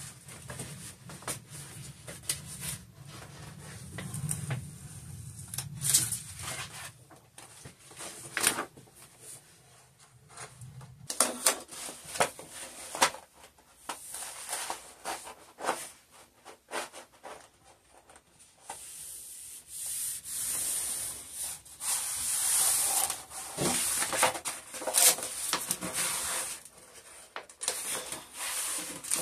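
Peel-and-stick paper wallpaper sheets crackling and crinkling as the backing is peeled and the sheet is pressed onto the wall. From about two-thirds of the way in, a steadier rubbing as the sheet is smoothed flat against the wall.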